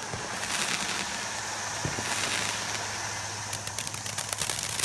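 Consumer firework spraying with a steady hiss, with a quick run of sharp crackles about three and a half seconds in.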